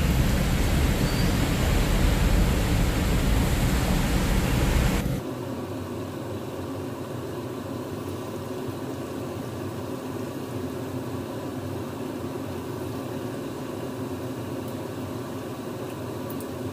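Battered chicken wings sizzling as they deep-fry in hot oil in a frying pan: a steady hiss that drops abruptly to a quieter level about five seconds in.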